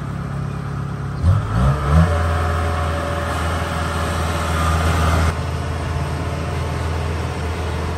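Diesel engines of tracked rice combine harvesters running as they drive along a road. About a second in, an engine revs up in a few quick rises and runs louder until about five seconds in, then drops back.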